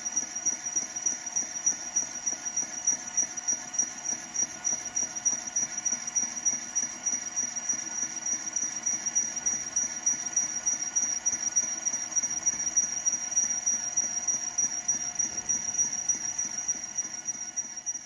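Line boring machine running, its rotating boring bar and cutting tool boring a steel pin hole in an excavator bracket: a steady high whine with a regular pulsing, a couple of times a second.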